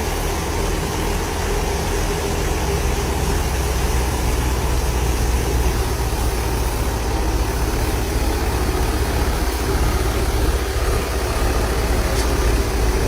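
Heavy harvesting machine's engine running steadily at an even speed, a continuous low drone.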